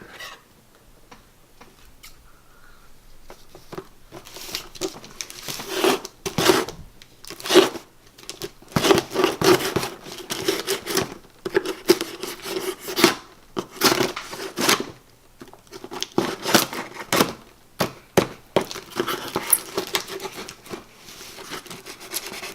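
Packing tape on a cardboard box being cut and torn open: irregular ripping and scraping strokes that start about four seconds in and go on in quick, uneven runs.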